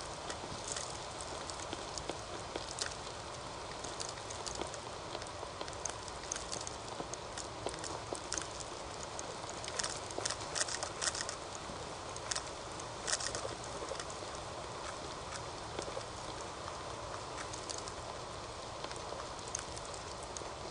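Whitetail deer feeding on shelled corn: scattered crunching clicks and crackles over a steady hiss from a trail camera's microphone. The clicks are busiest and loudest from about ten to thirteen seconds in.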